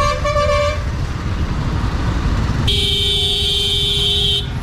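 Vehicle horns in stop-and-go traffic: a short honk at the start, then a loud, steady horn blast of nearly two seconds beginning just under three seconds in, over a constant low rumble of traffic.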